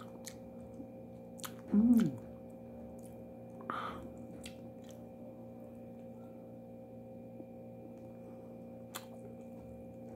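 A person chewing food close to the microphone, with a few sharp mouth clicks and a short voiced 'mm' falling in pitch about two seconds in. A brief breathy sound follows near four seconds, over a steady background hum.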